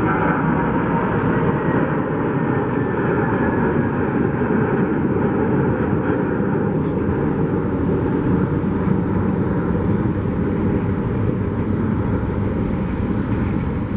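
Twin jet engines of an Airbus A321 airliner at takeoff-climb power, a loud steady roar as the aircraft climbs away.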